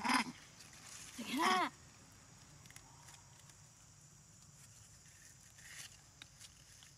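Two macaque calls: a short one at the very start, then a longer one about a second in that rises and falls in pitch.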